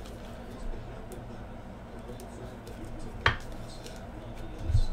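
Hard plastic card holders being rummaged through and handled, with light clicks, one sharp plastic click about three seconds in and a low thump near the end.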